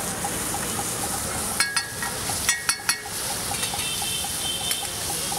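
Food sizzling on a hot pan or in oil, with a metal utensil clinking sharply against the pan several times, in two quick clusters between about one and a half and three seconds in.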